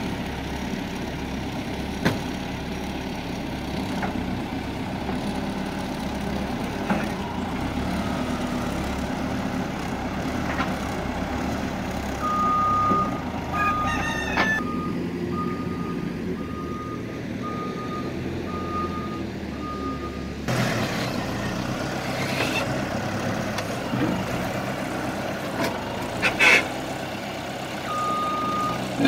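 Caterpillar telehandler's diesel engine running steadily, with its reversing alarm beeping about once a second for several seconds in the middle and again near the end. A few sharp metal knocks come from the machine or its load, the loudest about two-thirds of the way in.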